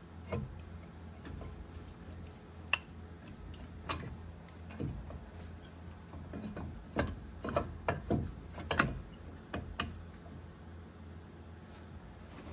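Irregular light metallic clicks and knocks of brake pads and caliper being handled and seated over the rotor of a truck's front disc brake, with one sharp click about three seconds in and a quick run of clicks in the second half, over a steady low hum.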